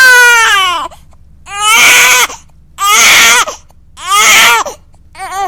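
Loud, high-pitched crying: a string of long wails, each falling in pitch as it trails off, with a short sob near the end.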